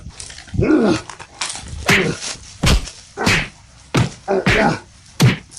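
A dog barking repeatedly, about eight short barks at irregular intervals.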